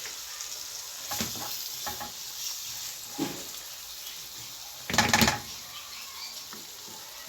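Chard filling with tomato sauce sizzling in a frying pan while being stirred, with small scraping clicks and one loud clatter of a utensil against the pan about five seconds in.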